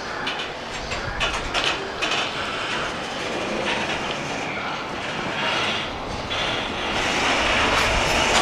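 Container flat wagons of a freight train rolling past, their wheels clattering over rail joints with a continuous rumble and rattle. It grows louder near the end.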